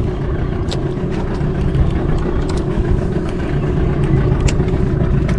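Fishing boat's engine running steadily at low revs, under a rumble of wind on the microphone, with a few faint clicks.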